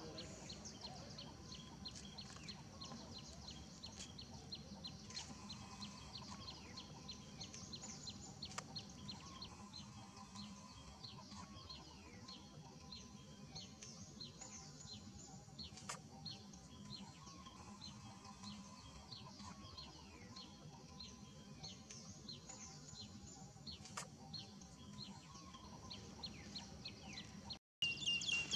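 Small birds chirping in the background: a steady stream of short, high, quick chirps over a faint low hum. Near the end the sound drops out for a moment and a louder high-pitched sound begins.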